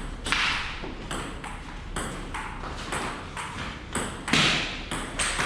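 Table tennis rally: the celluloid ball clicks off paddles and table in a steady run of sharp hits, about two a second.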